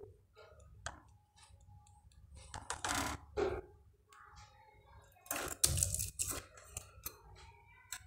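Pet budgerigars in a wire cage: short chirps and scratchy chatter mixed with sharp clicks, with louder rustling bursts about three and six seconds in.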